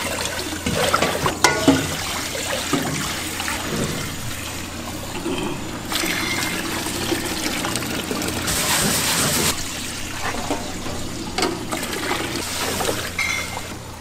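Water running and trickling as barley is rinsed by hand in a basin, with a few light knocks and a brief louder rush of water a little past the middle.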